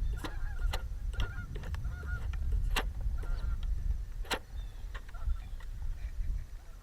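Geese honking again and again in short calls over a steady low rumble, with a few sharp clicks now and then.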